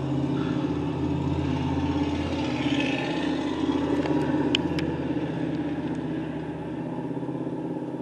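Steady hum of vehicle engines on the street, swelling a little around the middle as a pickup truck drives past, with a few faint clicks about four and a half seconds in.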